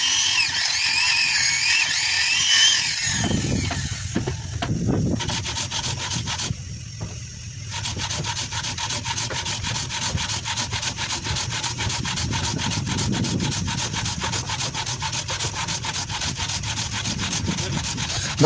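A handheld power sander runs against a curved wooden boat rib for the first few seconds, its whine wavering in pitch. From about eight seconds in comes steady, fast, even rubbing of the wood.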